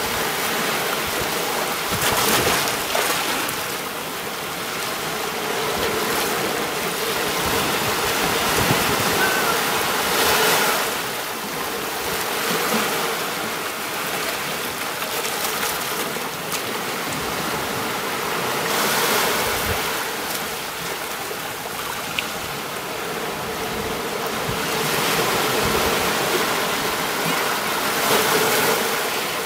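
Ocean waves breaking on a beach: a steady hiss of surf that swells four times, about every eight to nine seconds, as each wave comes in.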